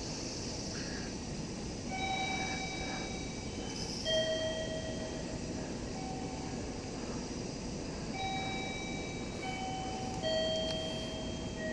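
Two-tone electronic chime, a higher and a lower note each held about a second, sounding again and again every couple of seconds over a steady background hiss. It is the station's guide chime that marks the stairs to the ticket gates for blind passengers.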